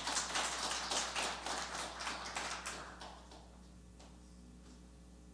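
Small audience applauding with individually audible claps, thinning out and dying away about three seconds in.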